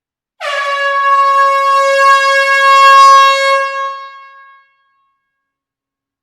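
A single long horn blast on one steady note, held for about four seconds and then fading out.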